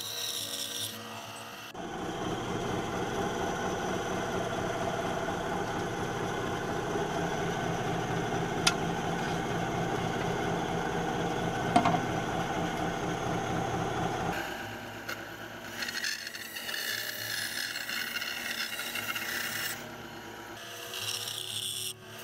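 Band saw running with its blade cutting through a small wooden block. There are two sharp clicks partway through, and about two-thirds of the way in the cutting sound turns thinner and higher.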